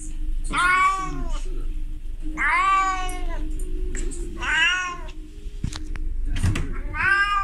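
Female calico cat in heat giving drawn-out mating calls. There are four in all, about two seconds apart, each rising then falling in pitch.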